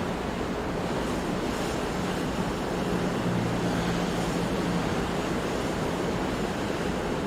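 Ocean waves and surf washing in a steady, unbroken rush, with no single breaker standing out. A faint low steady hum sits under it, a little stronger about three to five seconds in.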